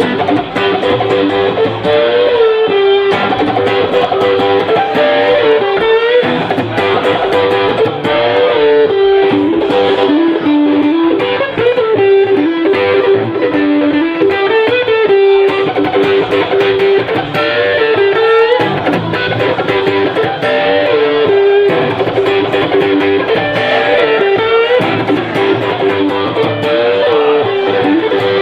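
Live band playing an instrumental passage: an electric guitar plays a lead line whose notes slide up and down, over a steady accompaniment.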